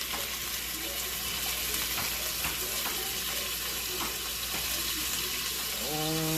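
Chopped onion and garlic sizzling in hot avocado oil in a Dutch oven, a steady hiss with a few faint ticks.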